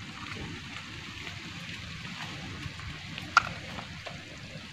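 Steady low hiss of pots of fish curry and vegetable soup simmering on portable gas stoves, with one sharp knock a little over three seconds in.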